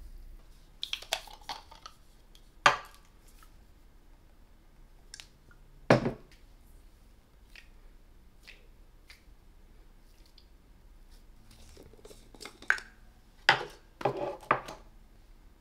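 Skincare bottles, caps and jars being handled: a few sharp clicks and knocks at irregular intervals, with a quick cluster of them near the end.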